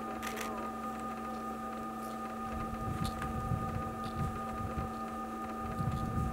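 A steady mechanical hum of several held tones over a low, fluctuating rumble, with a few faint clicks.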